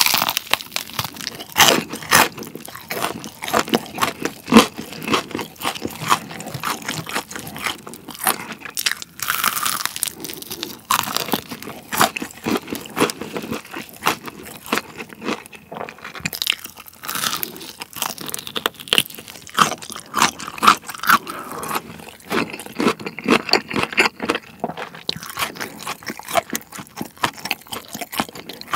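Close-miked crunching and chewing of a fried chicken wing coated in spicy cheese seasoning powder: many sharp crunches, several a second, as the crisp coating is bitten and chewed.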